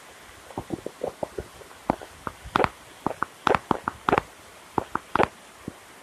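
Steady rain falling, overlaid by a quick, irregular run of loud, sharp taps close to the microphone that starts about half a second in and stops near the end.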